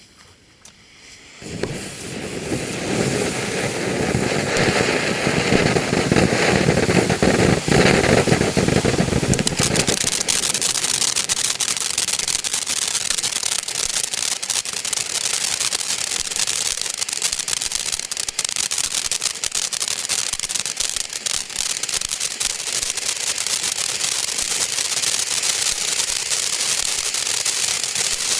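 Ground fountain firework going off: a loud rushing hiss starts about a second and a half in, then after about eight seconds turns into a dense, high crackling.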